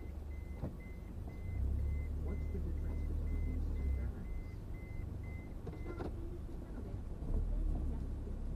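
Low rumble of a car's engine and road noise inside the cabin, with a regular series of short high-pitched beeps, about two a second, for the first six seconds, and a sharp click around six seconds in.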